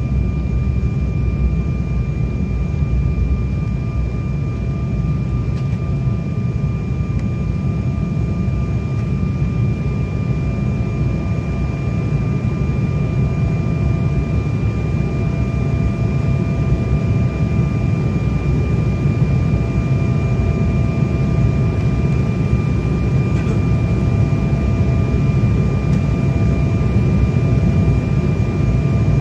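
Airliner cabin noise during descent: a steady low rushing drone of engines and airflow, with a thin steady whine above it.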